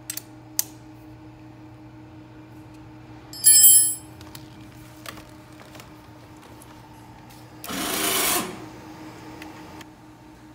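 Handling noises over a steady hum as motorcycle landing-gear wiring and connectors are reconnected: a few light clicks, a sharp clatter with a ringing edge about three and a half seconds in, and a short rushing burst near eight seconds.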